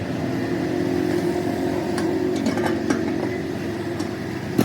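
An engine running steadily, with a few light clicks midway and one sharp knock at the end.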